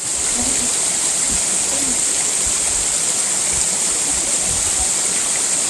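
Steady rush of flowing water, an even hiss with no let-up.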